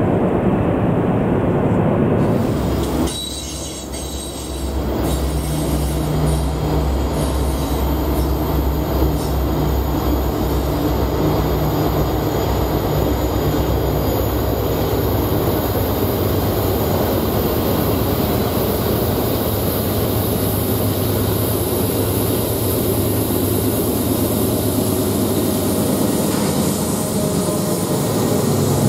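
Norfolk Southern diesel freight train passing through a tight curve: locomotive engines running with a steady low drone under the rolling of the cars, and steel wheels squealing against the curved rail. The sound dips briefly about three seconds in, then carries on steadily.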